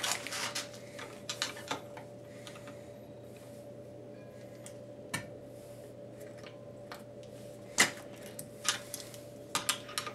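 Bench-bleeding a brake master cylinder: a screwdriver pushing the piston in slow, separate strokes, giving scattered sharp metal clicks and taps, about eight in all, the loudest near eight seconds in.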